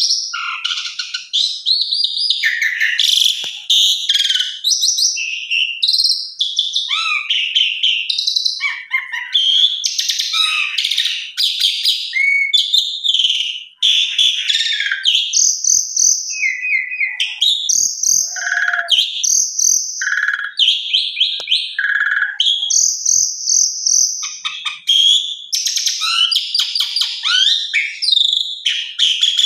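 Pied starling (jalak suren) singing a long, varied song: quick chattering phrases run into one another with almost no pause, and several held high whistles come in the second half.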